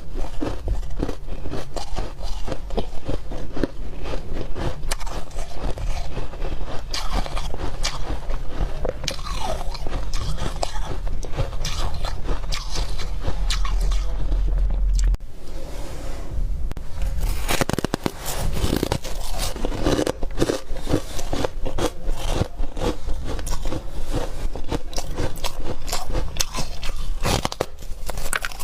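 Close-miked biting and chewing of chunks of freezer frost: dense, irregular crunching with squeaky ice sounds, going on throughout.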